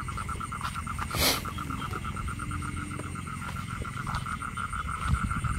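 Frogs calling in a steady, rapidly pulsing chorus, with a thin high trill above it and a brief rustle about a second in.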